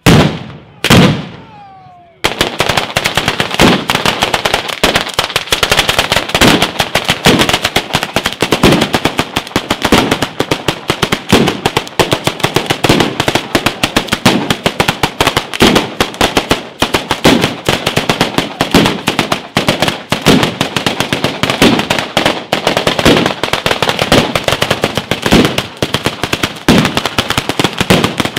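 Batteria alla bolognese firecracker chain going off: two big single blasts in the first two seconds, then from about two seconds in a dense, rapid, continuous crackle of bangs with louder bangs mixed in.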